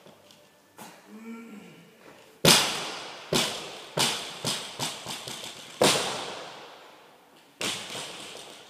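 Barbell loaded with bumper plates dropped onto a rubber gym floor: one loud bang, then a series of bounces coming quicker and quicker, with the impacts echoing in the hall. A short grunt comes just before the drop, and the bar hits the floor twice more a few seconds later.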